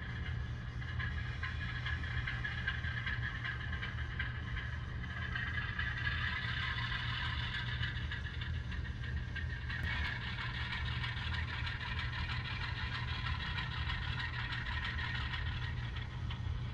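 Factory sound decoder of an HO scale Atlas ALCO diesel locomotive playing a steady diesel engine sound through the model's small speaker as the locomotive shoves a cut of freight cars.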